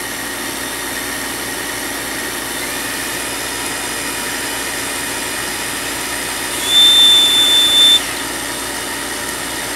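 King Kong GT110 mini quadcopter's brushless motors spinning their props at low speed, a steady whirring hum with a high whine. Past the middle a louder, higher steady whine comes in for about a second. The motors run unevenly at the same settings, which the owner takes for a defective motor or speed controller.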